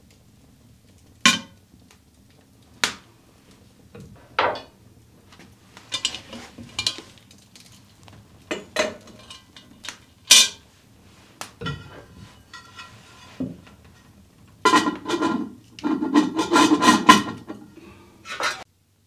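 Cast iron Dutch oven and its lid knocking and clanking: a few separate sharp clinks, then a dense run of clattering and scraping metal for about four seconds near the end.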